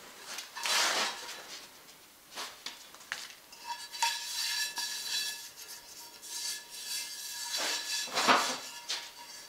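A cast iron skillet handled and rubbed with powder: dry brushing and scuffing strokes of a hand over the pan, the loudest near the end, with a steady metallic ring from about four seconds in.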